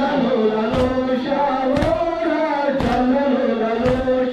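Group of mourners chanting a Muharram noha (lament) in unison on long held notes, with a sharp slap of collective chest-beating (matam) about once a second in time with the chant.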